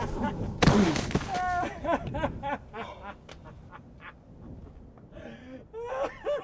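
A heavy thud, a man's body landing on dirt ground, about two-thirds of a second in, followed by his wordless groans and cries, which come again near the end.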